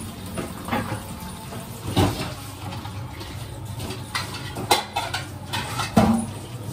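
Dishes and pans knocking and clinking as they are hand-washed at a kitchen sink: a handful of sharp clatters, the loudest about two seconds in and again near the end.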